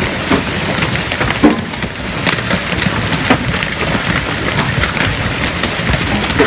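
Golf-ball-sized hail coming down hard: a dense, continuous clatter of falling stones with frequent sharp knocks as single hailstones strike hard surfaces.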